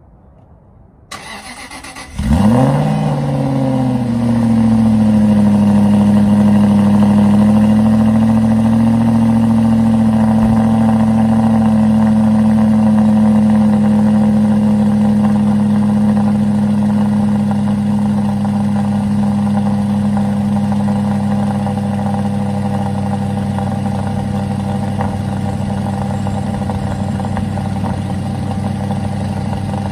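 Aston Martin Vantage's 4.3-litre naturally aspirated V8 with its stock exhaust starting up: brief cranking, then it catches about two seconds in with a sharp flare of revs. It drops back and settles into a steady fast warm-up idle, easing slightly lower in pitch and level toward the end.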